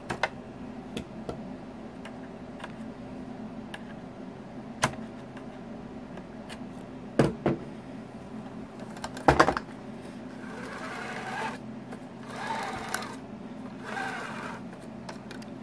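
Scattered clicks and taps of hard plastic as pins are pushed into 3D-printed plastic track links with needle-nose pliers: a sharp click about seven seconds in and a louder cluster about nine seconds in. From about ten seconds on come three short stretches of rattling as the plastic track is handled.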